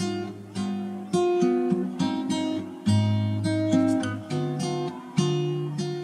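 Background music of acoustic guitar strumming chords, each strum ringing out before the next.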